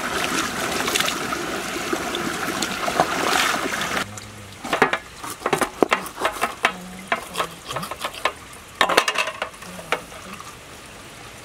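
Shallow stream water rushing over stones while a large fish is rinsed in it. About four seconds in the rushing stops, and a run of short wet clicks and squelches follows as fingers pull at the gills of the fish on a steel platter.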